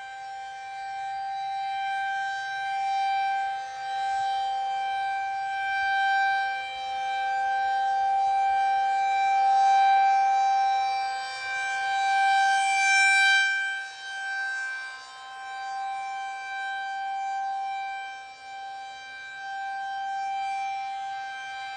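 Federal Signal 2001 rotating tornado siren sounding a steady, unchanging tone during a test. It grows louder and fainter every three to four seconds as the rotating siren head sweeps toward and away.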